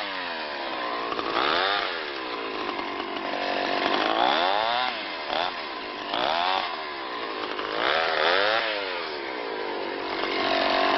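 Two-stroke chainsaw limbing a felled larch, revving up and dropping back about four times as each branch is cut.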